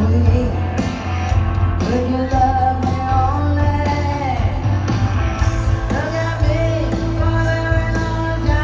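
Live rock band performing, with guitar, a steady bass and a woman's voice singing a gliding melody over it.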